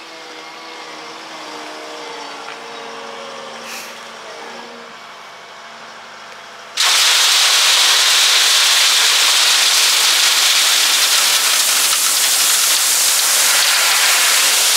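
Wheel loader's engine running, then about seven seconds in a bucket of 3/4-inch river rock starts pouring into the empty steel bed of a dump trailer, a sudden, loud, steady rush of falling stone that lasts to the end.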